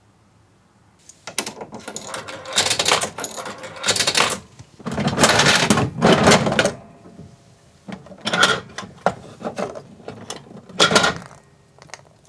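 Gacha capsule-toy vending machine being worked by hand: the dispensing handle is cranked with mechanical clicking and clattering, and a chocolate egg tumbles down into the chute. The noise comes in several spells, loudest near the middle.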